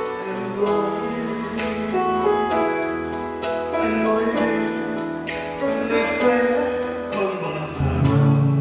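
A man sings into a microphone over an amplified backing track with a steady drum beat.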